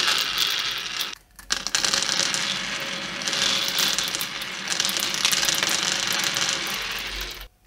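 Small steel bearing balls pouring from a small tube and rolling into the grooved channels of a 3D-printed plastic track: a dense rattling and clicking, with a brief pause about a second in.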